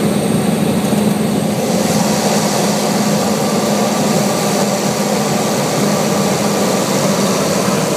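Propeller aircraft's engines running steadily, heard from inside its cabin: a constant low drone with a wash of higher noise that grows a little brighter about a second and a half in.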